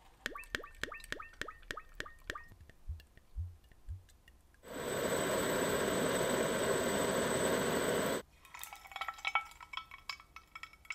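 A run of light glassy clinks and a few soft thumps. Then a handheld butane torch burns with a steady hiss for about three and a half seconds. It cuts off, and the hot metal disc crackles and fizzes as it sits in a liquid bath.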